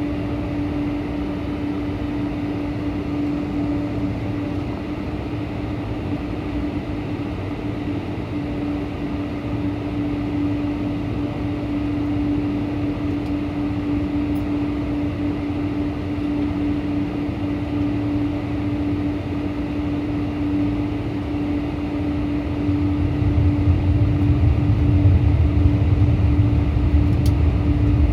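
Steady airliner cabin noise aboard a Boeing 747-400: an even rush of air and engine noise with one constant hum. A deeper rumble grows louder a little over 20 seconds in.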